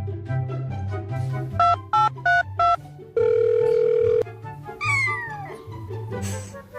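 Background music with a steady bass line. Partway through come four short electronic beeps and then a single held tone lasting about a second, and near the end a high-pitched call that slides down in pitch.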